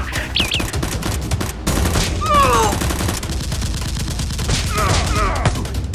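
Rapid automatic gunfire sound effect, a dense run of shots, with short falling whines about two seconds in and again near the end.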